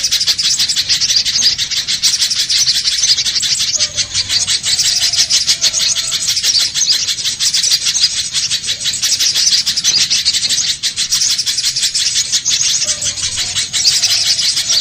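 Little spiderhunter calling, a fast, unbroken stream of high-pitched chipping notes, many a second, with no pauses.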